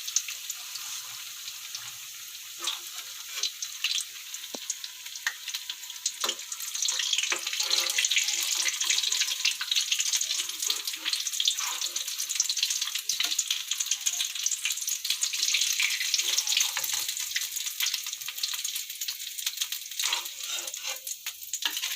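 Veg cutlets deep-frying in hot oil: a dense sizzle and crackle that swells louder from about six seconds in, then eases, with occasional light knocks as they are lifted out.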